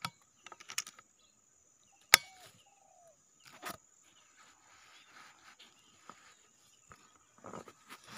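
A single loud, sharp crack about two seconds in, with a brief short chirping tone just after it. Fainter clicks and rustles come before and after.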